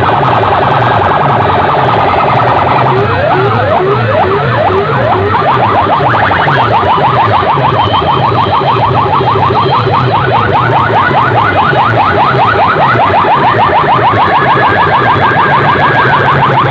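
Very loud DJ sound-system speakers blasting an alarm-style competition effect: rapid rising siren chirps repeating several times a second over a fast pulsing bass. The chirps come thicker and faster about a third of the way in.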